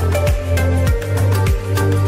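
Background music with a steady beat: a deep kick drum and bass line under sustained synthesizer notes.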